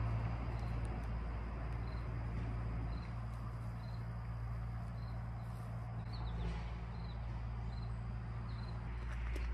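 Outdoor ambience: an insect, cricket-like, chirping in short high notes about once every three-quarters of a second, over a steady low hum.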